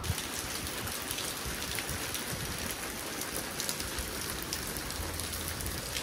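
Steady heavy rain falling, with single drops ticking now and then.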